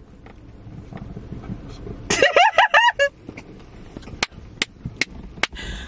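A man whispers low into a woman's ear, then about two seconds in she breaks into a high, squealing laugh. Near the end come four sharp claps a little under half a second apart.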